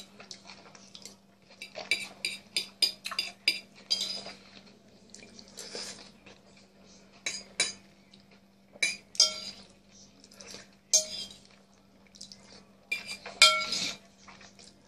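Metal fork clinking and scraping against a plate while food is scooped up, in irregular clusters of sharp ringing taps, over a faint steady hum.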